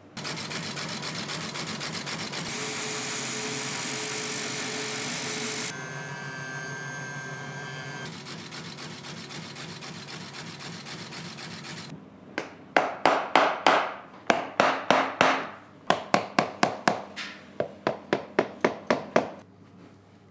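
A motorised shoe-repair tool runs steadily for about twelve seconds, changing pitch a few times. Then come a series of quick scraping strokes on the sole, about three a second, which stop near the end.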